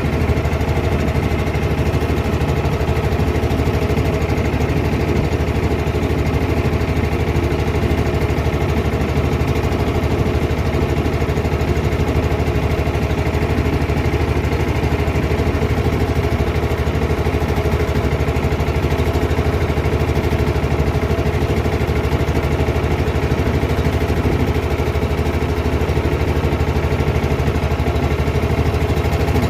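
Small boat engine running steadily at an even speed, a constant low drone with no change in pitch.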